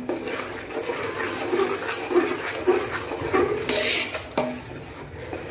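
A metal ladle scraping and knocking against a large aluminium cooking pot as thick masala is stirred, with a brief louder hissing scrape about four seconds in.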